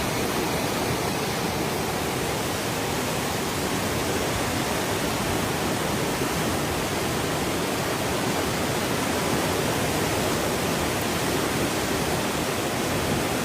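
Steady, unbroken rush of water, an even noise with no change in level throughout.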